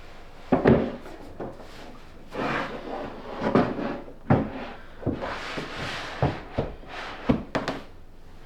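Knocks and bumps of flat-pack wooden furniture parts being handled and shifted, about ten sharp knocks with stretches of scraping between them.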